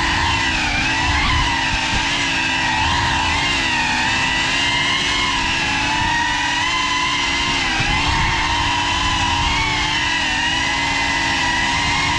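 Brushless motors and ducted propellers of a Cinelog35 cinewhoop FPV drone whining steadily in flight, heard from the drone's onboard camera. The pitch wavers slightly with the throttle.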